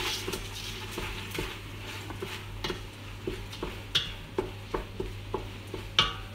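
Wooden spoon stirring and scraping bomba rice as it toasts in sofrito in a stainless steel pot, with a light sizzle under it. The spoon knocks and scrapes against the pot in irregular strokes about once or twice a second, sharpest about four and six seconds in.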